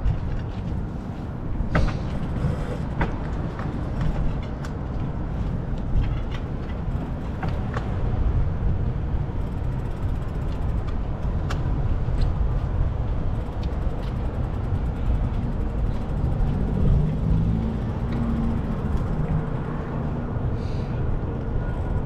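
Street traffic heard from a moving bicycle: a steady low rumble with a few scattered light clicks.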